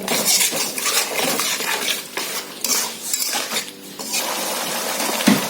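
Spatula scraping and stirring spice masala in a kadai, a run of quick, irregular scrapes on the pan that gives way to a steadier hiss near the end.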